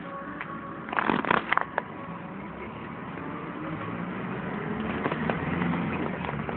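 A truck's running noise slowly growing louder, with a short cluster of sharp cracks about a second in.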